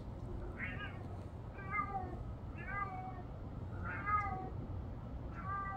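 A domestic cat meowing five times, with short meows about a second apart.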